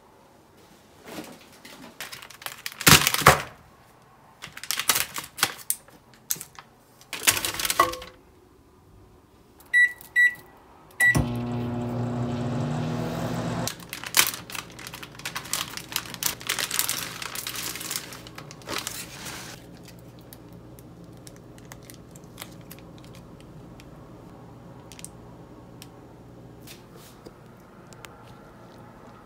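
Kitchen handling noises at a refrigerator, then three microwave keypad beeps about ten seconds in and the microwave oven starting with a steady hum. After a few seconds a sealed plastic food packet crinkles as it is handled, over a fainter steady hum.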